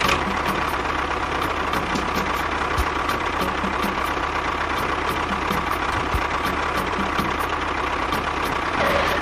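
A motor or engine running steadily, with a faint regular ticking. It starts and stops abruptly.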